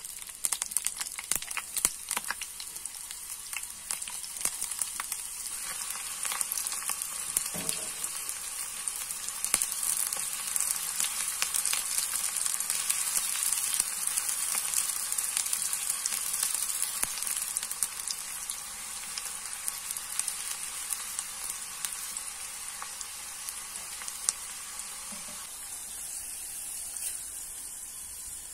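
Sliced onions and chillies frying in hot oil in a deep non-stick pan: a steady sizzle full of fine crackles, sharpest in the first couple of seconds.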